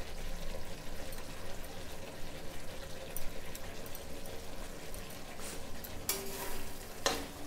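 Masala gravy sizzling and frying in a kadhai as chopped coriander leaves are dropped in. About six seconds in, a metal spatula scrapes and stirs against the pan for about a second.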